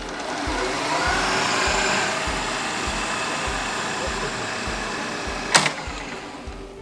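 Toro walk-behind greens reel mower running, its small engine and spinning cutting cylinder making a steady mechanical whir that swells and then slowly fades as the mower moves away. A sharp click about five and a half seconds in.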